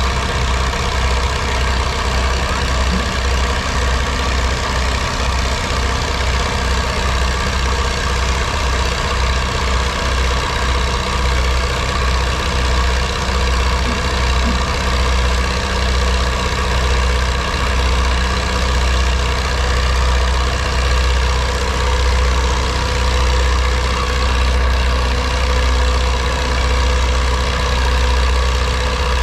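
Vintage farm tractor's engine idling steadily with a deep low rumble.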